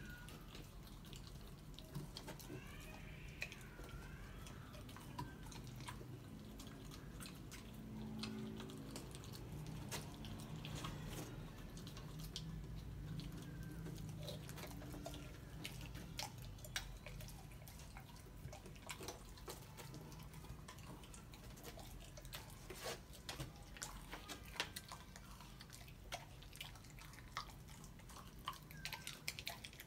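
A puppy gnawing frozen raw chicken bones: faint, irregular wet clicks and small crunches from its teeth, coming more thickly in the second half.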